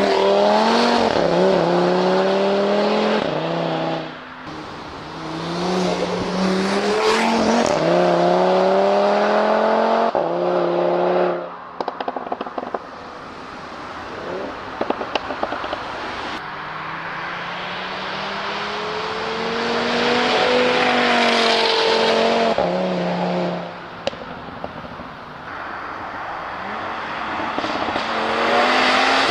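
Audi RS3 8V's turbocharged 2.5-litre inline five-cylinder pulling hard and rising in pitch through the revs, with sudden drops at the gear changes. Twice the driver lifts off and the exhaust gives a run of crackling pops and bangs on the overrun, then the engine pulls again.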